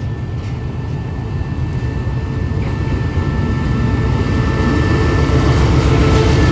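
Diesel-electric locomotive QSY.5224 approaching on a freight train. Its engine is running with a deep drone and a thin high whine, growing steadily louder as it nears.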